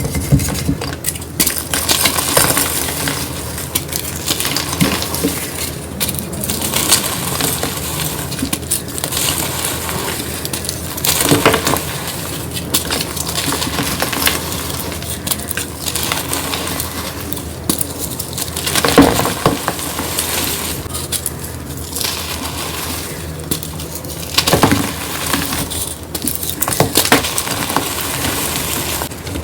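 Gym chalk being crumbled and crushed: a steady crunchy, glassy crackling, with several louder crunches along the way.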